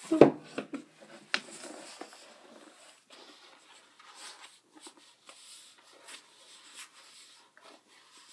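A knock just after the start and a sharp click about a second later, then faint rustling and light taps of handling as a paperback book is fetched and held up.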